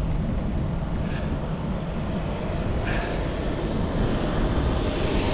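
Wind and road rumble on a bicycle-mounted action camera, with a school bus's engine coming up from behind to overtake, growing louder near the end. A few short high tones sound about halfway through.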